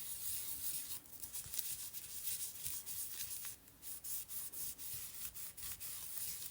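Inky baby wipe rubbed and dabbed over a stencil on paper: a rapid, uneven run of papery rubbing strokes.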